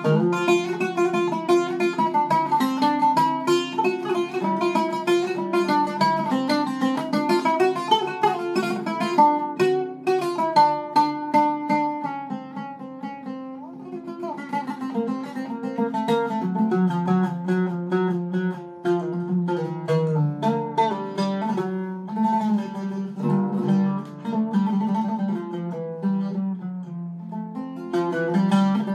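Solo Iraqi-style Zeryab oud with a cedar soundboard and rosewood-and-wenge back, played with a plectrum: a run of quickly plucked single notes, softening briefly about halfway through before picking up again.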